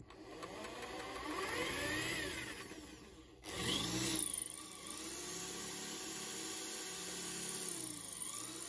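Electric drill running, its twist bit boring into a small metal part, the motor's whine rising and falling in pitch as the load changes. The sound breaks off sharply about a third of the way in and starts again.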